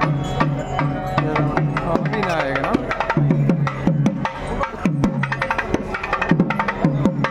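Drum-led percussion music: rapid drum strokes, many sliding down in pitch just after the hit, with sharp clicking beats over them and a brief run of gliding higher notes about two seconds in.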